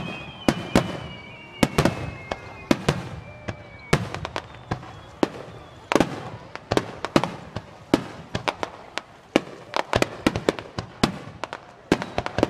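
Aerial fireworks bursting in rapid, irregular succession: sharp bangs, several a second, each with a short echoing tail. Over the first four seconds, high whistles slowly fall in pitch among the bangs.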